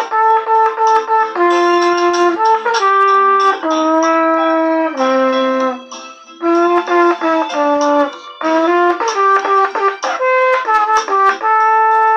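Solo trumpet played by a beginner, picking out a slow melody in separate held notes. There is a brief break about halfway through.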